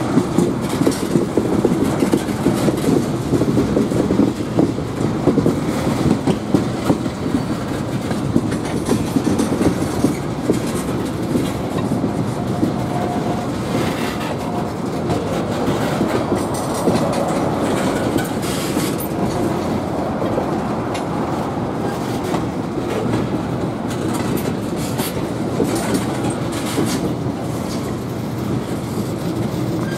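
Railroad tank cars of a freight train rolling slowly past, their steel wheels clacking over rail joints with a steady rumble.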